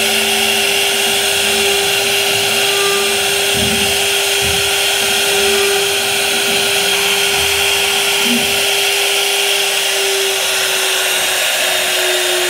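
CNC router spindle running steadily while its bit cuts a groove pattern into a wood panel: a constant whine over a noisy cutting hiss. The whine drops slightly in pitch near the end.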